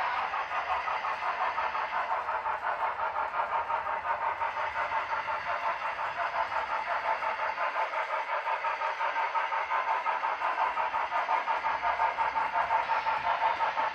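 HO scale model locomotive sound running through a small onboard speaker: a fast, even beat of several pulses a second over a steady hiss, with little low end.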